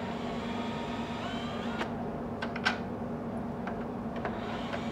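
Cordless drill/driver running steadily at low speed, backing a long screw out of a threaded insert in the bike's frame tube, with a few sharp clicks and a brief rising whine about a second in.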